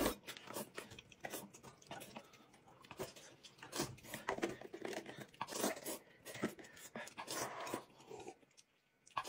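Close-miked eating sounds: noodles slurped and chewed in irregular short bursts, mixed with small clicks and knocks of chopsticks, a bowl and a glass jar being handled.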